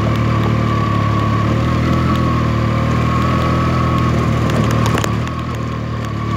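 Motorcycle engine running steadily while riding, with a thin steady whine above the engine note. It eases off a little about five seconds in, then picks up again.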